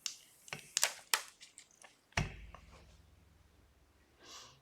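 Sharp clicks and taps of a reassembled iPhone 12 being handled on a workbench, with a louder knock about two seconds in followed by a faint low hum.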